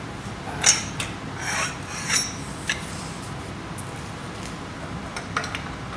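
Metal tools clinking and scraping against a Mazda 12A rotary engine as a wrench and bar are fitted onto its front pulley bolt: a few sharp clinks in the first three seconds, the loudest about a second in, then lighter ticks near the end.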